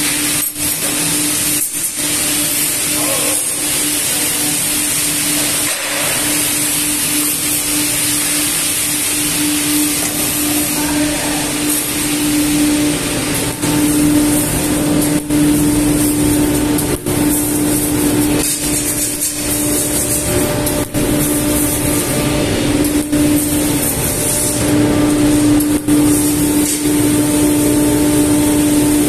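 Metal-shop machinery running: a steady hum over a high hiss, first from a hydraulic ironworker and then from a CNC laser cutting machine cutting sheet steel. The hum breaks off briefly twice in the second half.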